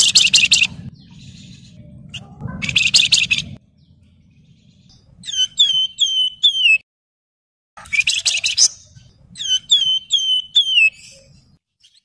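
Caged Javan fulvetta (wergan Jawa) singing. Quick chattering trills alternate with runs of about five clear, high whistled notes, each note sliding down at its end.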